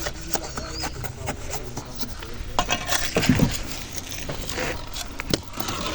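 Building-site work noise: scattered sharp clinks and taps of hand tools, with people talking in the background.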